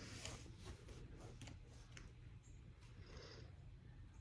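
Near silence: room tone with a low hum and a few faint soft clicks.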